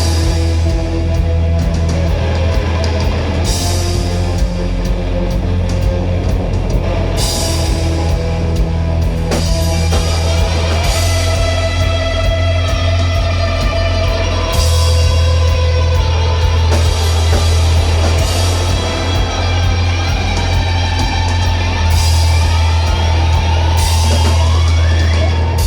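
Rock band playing an instrumental passage live: distorted guitars and a heavy bass line over a drum kit, with cymbal crashes every few seconds. The sound is loud and dense.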